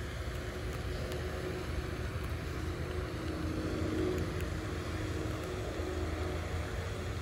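Steady outdoor background noise: an even low rumble with a hiss above it, with no distinct event standing out.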